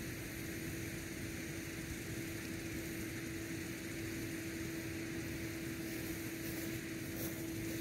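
Metal singing bowl ringing with one steady, sustained tone over a background hiss.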